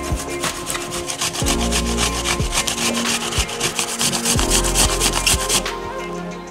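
A whole apple rubbed up and down a stainless steel box grater: quick rasping strokes, about four or five a second, that stop near the end.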